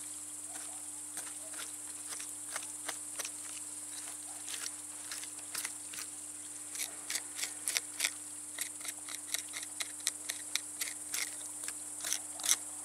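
Knife scraping and cutting crucian carp on a wooden board: short scrapes and clicks, sparse at first, coming quickly and more loudly from about halfway through. A steady high buzz of insects sounds behind them.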